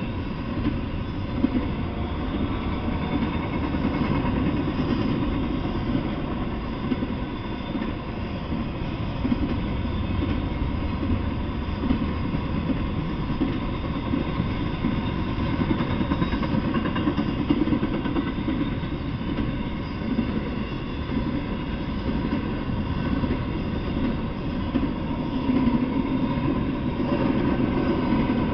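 Double-stack intermodal freight train rolling past, a steady rumble of its wheels and cars on the rails.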